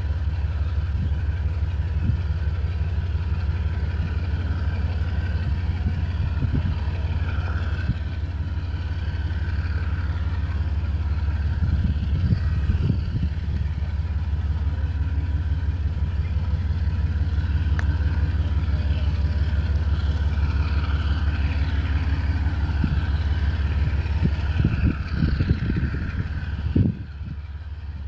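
Two GE TE33AC diesel-electric locomotives running with their V12 diesel engines giving a steady low rumble with a fast even throb as they haul a train slowly forward. A few knocks sound about halfway through and again near the end.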